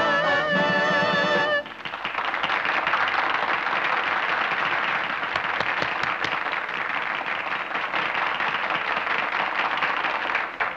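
A party audience applauding and clapping steadily. Just before it, the singer's held final note with the band cuts off about a second and a half in.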